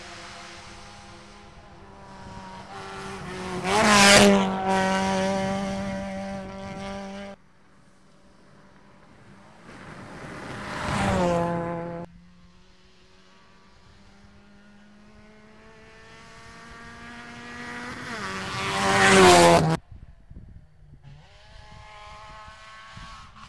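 Rally cars passing one after another at speed. Each engine note builds as the car approaches, peaks loud about four, eleven and nineteen seconds in, and drops in pitch as it goes by. Each pass cuts off suddenly, and a fainter car follows near the end.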